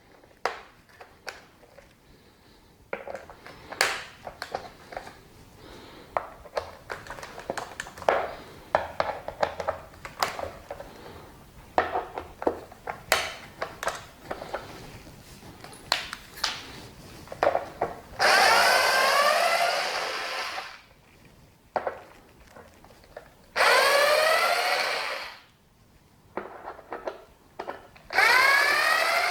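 Power drill-driver with a T20 Torx bit backing out screws from a plastic handrest, in three runs of a couple of seconds each, the whine rising as the motor spins up. Before the first run, clicks and scraping of the bit and parts being handled.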